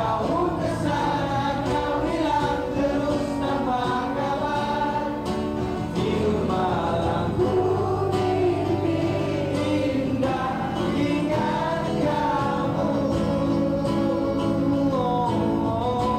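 Malay pop song in a live acoustic performance: a male lead voice singing the melody over acoustic guitar accompaniment, at a steady level.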